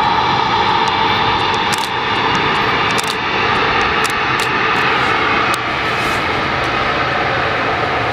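The jet engines of an Air Canada Airbus A220-300, Pratt & Whitney PW1500G geared turbofans, running steadily as the airliner turns on the runway. A whine sits above the broad jet noise and sinks slightly in pitch.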